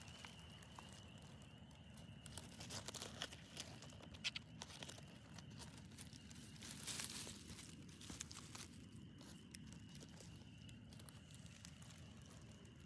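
Soft crinkling and crackling of dry pine-cone scales, bark flakes and needles being touched and brushed by hand. Faint spring peepers trill steadily in the background.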